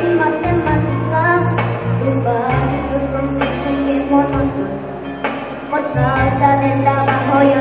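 Pop ballad backing track with a steady bass line and percussion, and a female voice singing a melody without clear words.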